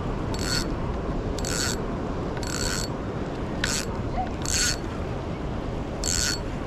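Fishing reel ratcheting as line is pulled off it, in six short bursts about a second apart, over steady wind noise. The loose line is being taken by a live baitfish pulling on the hook.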